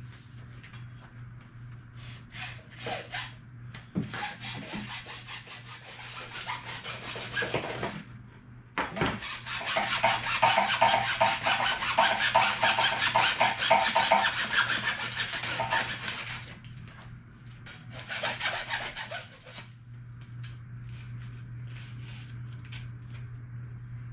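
Hacksaw cutting through PVC pipe with fast back-and-forth strokes. It comes in several spells, the loudest lasting about seven seconds in the middle, then a few short strokes near the end. A steady low hum runs underneath.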